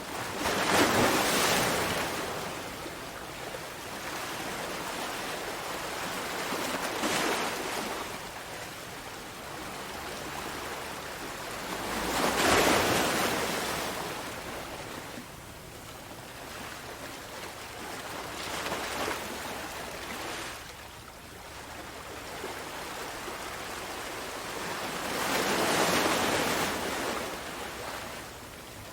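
Ocean surf: waves breaking in five swells, about one every six seconds. The loudest comes about a second in, with others about halfway and near the end.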